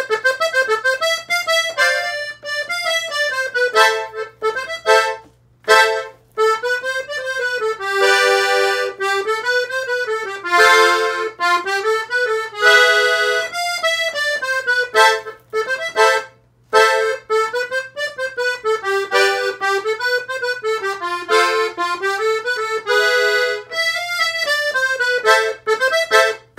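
Button accordion playing a melodic passage in A minor: quick runs of single notes broken by a few full chords, with brief pauses about five and sixteen seconds in.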